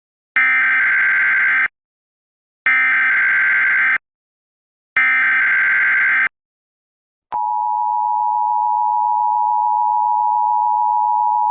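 Emergency Alert System tones: three SAME header data bursts, harsh buzzing digital screeches each just over a second long with a second's pause between, then a click about seven seconds in and the steady two-tone EAS attention signal, which holds.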